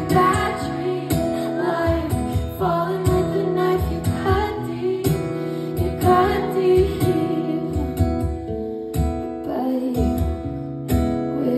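A woman singing live to her own strummed acoustic guitar, heard from among the audience.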